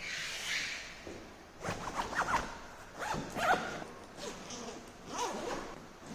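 A backpack zipper being pulled in about four quick, scratchy strokes, after a short hiss in the first second.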